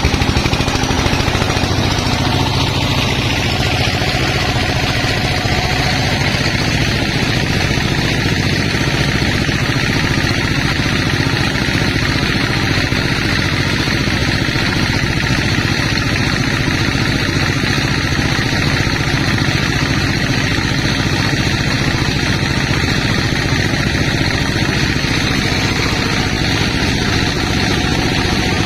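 Sawmill machinery running steadily, with the rapid even pulsing of an engine. A higher whine drops in pitch about two to three seconds in.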